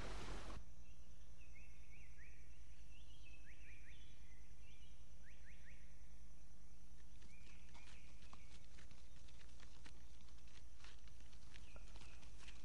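Small birds chirping in short, quick rising calls, then from about seven seconds in a fast run of footsteps on the ground, with a few more chirps, all over a steady low hum.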